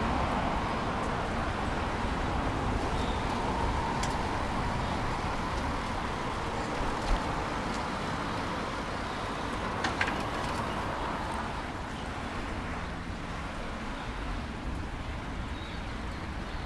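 Road traffic: cars driving past on the road, a steady wash of tyre and engine noise, with a couple of short sharp clicks about seven and ten seconds in.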